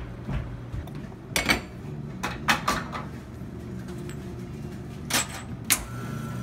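Ceramic espresso cups clinking and clacking as they are handled on a commercial espresso machine and set on its metal drip tray, a handful of sharp knocks over a low steady hum.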